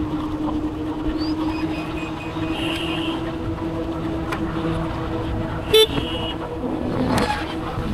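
Road traffic heard while riding an electric scooter: a steady hum with road and wind noise, several short, high horn beeps, and one loud, very brief horn toot about six seconds in.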